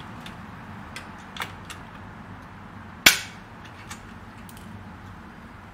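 Hand pop-rivet tool setting a blind rivet in an aluminum window frame: a few light clicks as it is squeezed, then one loud, sharp snap about three seconds in as the rivet's mandrel breaks off and the rivet is set.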